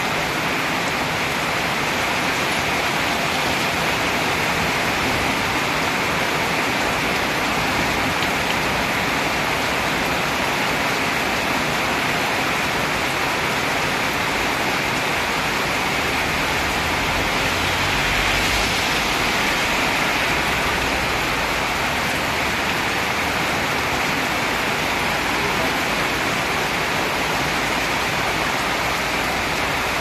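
Heavy rain pouring steadily onto a flooded street and pavement, a dense even hiss of downpour. A little past the middle it swells briefly, with more low rumble, as a vehicle passes on the wet road.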